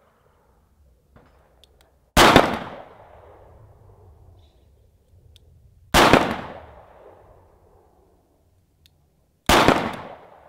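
Three single handgun shots, slow aimed fire about three and a half seconds apart, each cracking sharply and trailing off in a long echo.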